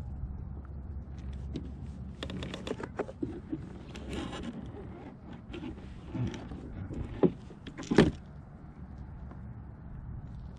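Steady low hum of the motorized kayak underway while trolling, with scattered clicks and rustling, then two sharp knocks about seven and eight seconds in.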